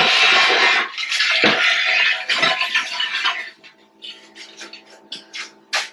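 Heavy metal parts scraping and clanking as a compactor drum is worked loose: a loud rough scrape for about three seconds, then a run of separate clanks and knocks, over a steady hum.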